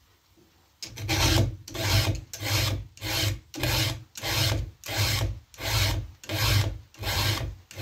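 Round file rasping across a chainsaw chain's cutter tooth to sharpen it, in about a dozen even strokes at nearly two a second, starting about a second in.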